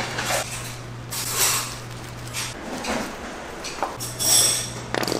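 Kitchen work clatter: a few scrapes and knocks of utensils and containers, one near the end with a short metallic ring, over a steady low hum that cuts out in the middle and comes back.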